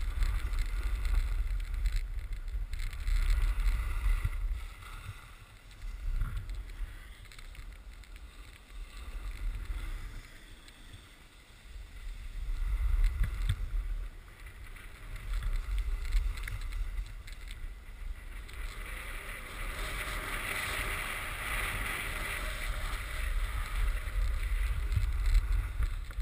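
Wind buffeting the microphone in gusty low rumbles, with the hiss and scrape of a snowboard sliding and carving over packed groomed snow; the scraping grows louder and more continuous toward the end.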